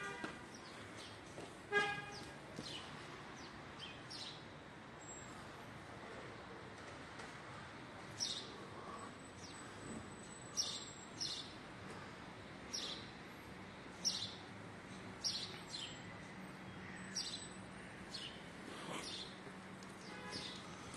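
Footsteps scuffing and tapping on stone steps as someone climbs, irregular sharp ticks every second or so. A car horn toots twice briefly near the start, over a faint steady street hum.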